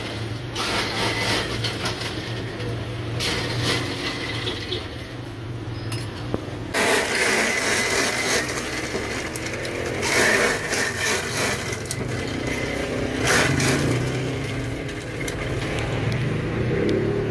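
A spoon scrapes and clinks against steel trays and a plastic cup. Then an electric ice shaver grinds ice into the cup in several bursts from about seven seconds in, over a steady low hum.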